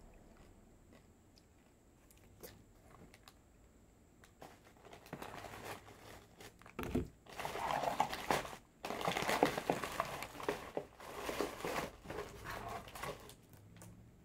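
Plastic snack wrappers crinkling and packaging rustling as a hand rummages through a cardboard snack box, louder in the second half, with a soft thump about seven seconds in.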